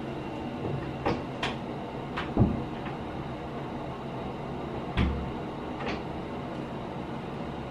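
A few scattered clicks and knocks of household handling, the loudest two dull thuds about two and a half and five seconds in, over a steady low hum.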